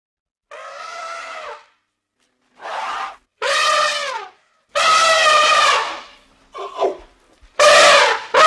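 Elephant trumpeting: a run of about six loud, brassy calls, each under a second and a half long with short gaps between, a brief one a little before the last.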